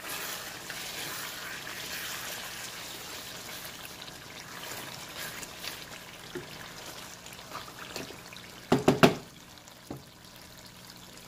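Mutton curry gravy bubbling in a pan as it is stirred with a wooden spatula, the meat and liquid sloshing and squelching while the sauce is boiled down on high heat. A quick cluster of knocks just before nine seconds in is the loudest sound.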